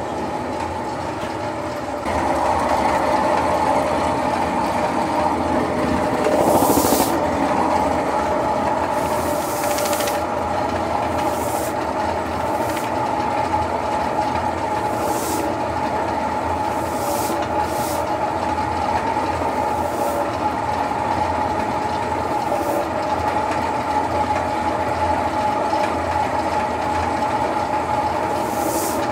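A machine running steadily with a droning hum that starts about two seconds in, broken about ten times by short hisses.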